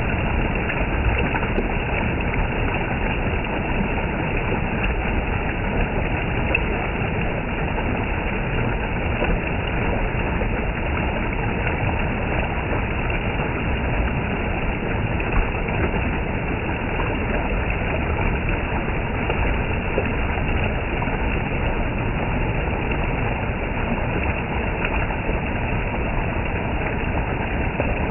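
Water gushing down in a steady, unbroken rush.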